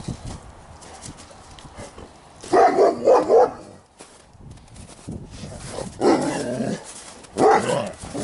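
Large shepherd-type guard dog barking in rough, excited play with a rag: a quick run of three loud barks a couple of seconds in, then more bursts about six seconds in and again near the end.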